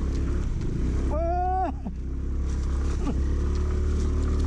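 Aprilia Storm 125 scooter's single-cylinder engine running steadily while riding a rough mud road. About a second in comes a short held vocal call that drops in pitch at its end.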